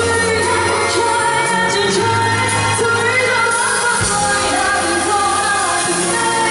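Live band playing a Chinese pop song with a singer's voice over it; steady, full and loud throughout.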